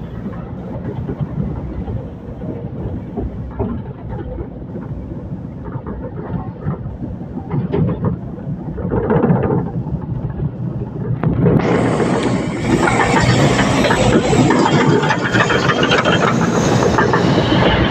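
Diesel engine of a tracked excavator running, with rattling mechanical noise. About two-thirds of the way in it gets suddenly louder and harsher, as if revving up under load.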